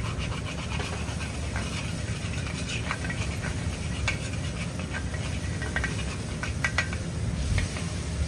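Metal ladle scraping and clinking against a steel wok as mee goreng is stir-fried, in quick irregular strokes over a steady low rumble.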